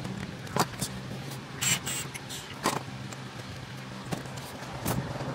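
Hand tools clicking and clanking on the metal rear axle nut of an RC dirt bike as the wheel is worked loose: a handful of sharp clicks a second or so apart and one short scrape, over a steady low hum.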